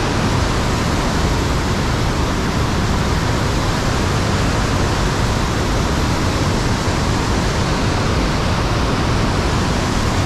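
Main Falls waterfall, whitewater pouring over a broad rock ledge in a steady, loud, unbroken rush.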